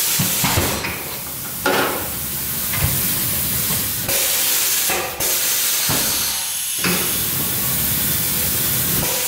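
Compressed air hissing steadily at a tyre changer, broken a few times by short knocks and shifts in the hiss.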